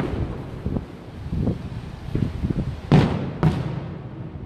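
Aerial fireworks shells bursting: a run of dull low thuds, then two loud booms about three seconds in, half a second apart, each trailing off.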